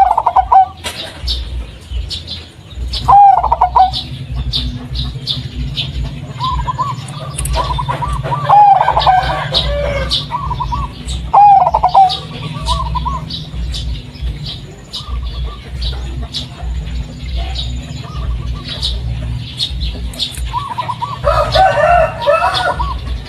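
Zebra dove (perkutut) of the local Blorok Madu type singing its cooing song, a deep, rounded call delivered in repeated phrases a few seconds apart, with longer runs about a third of the way in and near the end. Short high chirps sound steadily in the background.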